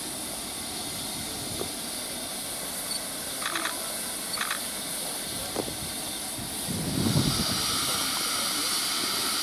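GWR Castle class 4-6-0 steam locomotive standing in steam, its safety valve hissing steadily as steam escapes from the boiler. The hiss grows louder about two-thirds of the way through.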